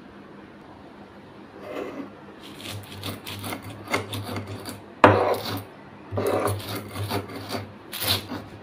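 A sil-batta grinding stone is rubbed back and forth over the grooved slab, crushing whole spices and chillies into masala: rapid repeated rasping strokes starting about two seconds in, with one sharp knock about halfway through.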